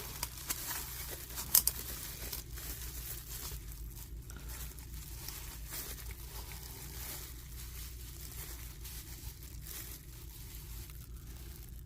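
Faint rustling and crinkling of small parts being handled, with a few sharp clicks in the first two seconds.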